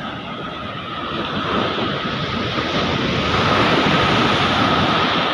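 Ocean surf breaking and rushing in, swelling louder over the first few seconds, with wind buffeting the microphone.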